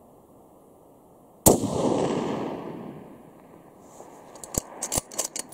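Ruger Precision Rifle in 6.5 Creedmoor firing a single shot about a second and a half in, the report trailing away over about a second and a half. A few seconds later comes a quick run of sharp clicks.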